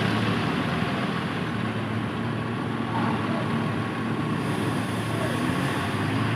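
Mercedes-Benz bus's diesel engine running steadily, with people talking in the background.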